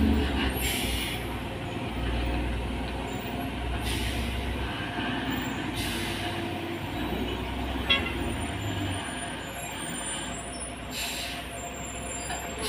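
Heavy FAW diesel truck labouring on a steep mountain bend, its engine rumbling low, with several short air-brake hisses and a single click about eight seconds in.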